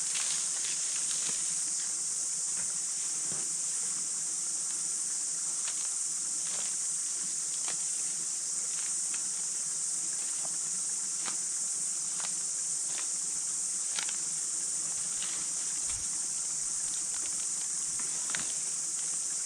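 A steady, high-pitched insect chorus, with scattered light clicks and rustles as camp gear is handled and packed.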